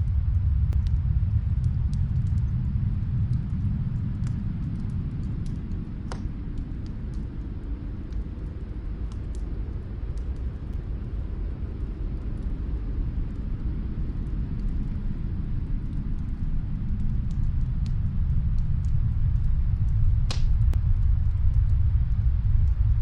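Snowstorm wind rumbling low, easing off in the middle and building again toward the end, with faint scattered crackles and pops of a fireplace fire in another room, one sharper pop near the end.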